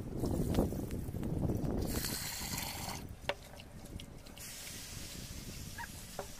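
Urad dal being washed by hand in a pot: the cloudy rinse water is poured off, then fingers swish and rub the soaked dal in the water. A single light knock comes about three seconds in.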